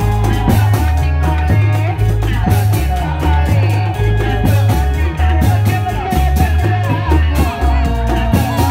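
Loud accompaniment music for a reog mask dance: a heavy bass line moving in held steps under a wavering lead melody, with regular drum strokes.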